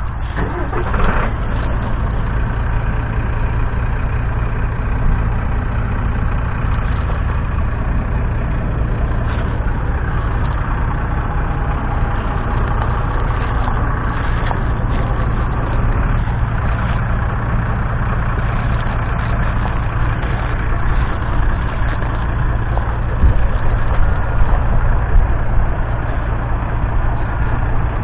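1961 Massey Ferguson 65's 3.3-litre four-cylinder diesel engine idling steadily, a little louder for a few seconds near the end.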